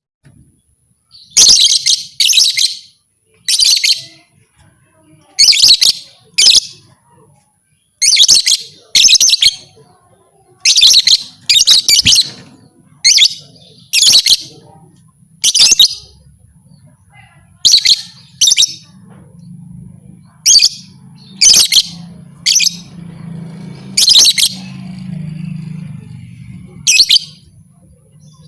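Lovebird giving short, loud, shrill chirping bursts, often in close pairs, about one every second and a half. It is the kind of call that keepers play to stir other lovebirds into calling and fighting.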